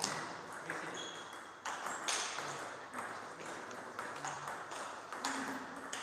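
Table tennis ball clicks: a few sharp knocks of the celluloid ball on the table and bats, one at the start, two close together about two seconds in, and another near the end as a rally gets going.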